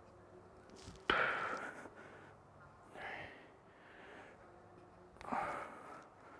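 Heavy breathing of a man doing squat jumps: three hard, breathy exhales about two seconds apart, the first the loudest and sharpest.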